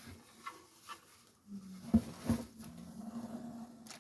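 Light handling sounds: soft rustling and a few knocks, the sharpest two close together about two seconds in, with a faint low hum under the second half.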